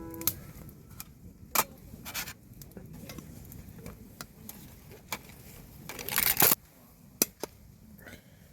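Small objects being handled: scattered light clicks and taps, with a short scrape about six seconds in.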